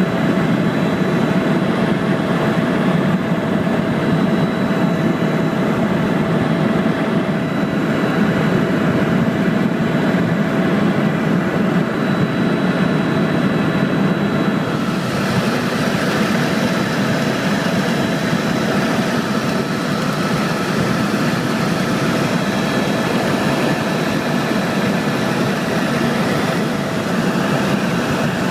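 Tour helicopter's turbine engine and rotors running steadily, a loud even drone with a faint high whine over it. About halfway, the higher hiss grows brighter.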